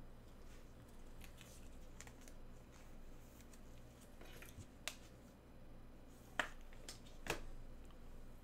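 Gloved hands handling trading cards and a foil pack wrapper on a table mat: faint rustling, with a few sharp clicks in the second half.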